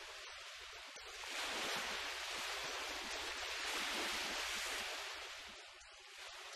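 Sea surf rushing on a sandy beach, swelling about a second in and easing off near the end, with a low rumble underneath.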